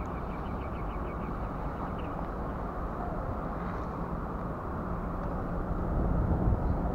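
Steady low outdoor rumble, growing a little louder near the end, with a faint rapid ticking in the first second.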